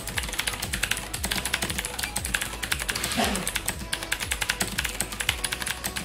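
Fast typing on a Rapoo VPRO V720s mechanical keyboard with Rapoo Blue switches: a rapid, continuous stream of sharp, clicky keystrokes.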